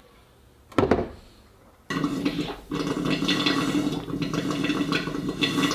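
A single knock, then water rushing and gurgling through the boat's cooling tubing and brass pipes in a steady flow with a held tone in it.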